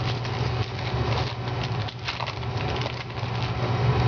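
Trading cards handled and flipped through by hand, making a run of small, irregular crackling clicks, with a steady low hum underneath.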